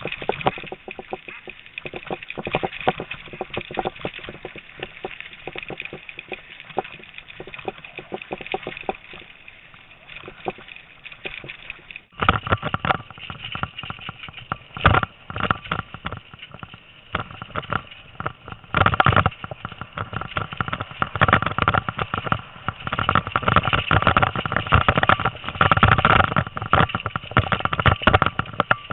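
Bicycle rolling and rattling over a bumpy dirt trail while towed by a two-dog bikejor team, with many small knocks and clatters; the noise gets louder about twelve seconds in.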